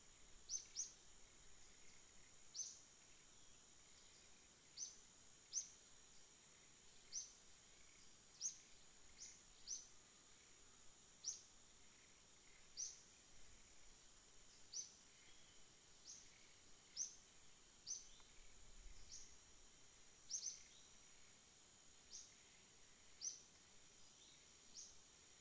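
Quiet natural ambience: a steady high insect drone, with short, high chirps that slide down in pitch, repeating irregularly about once a second.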